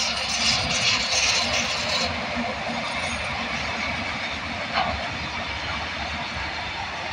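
Train running past on the rails, a steady rumble and rattle of wheels on track. A bright high hiss drops away about two seconds in, and there is a single short clank near five seconds in.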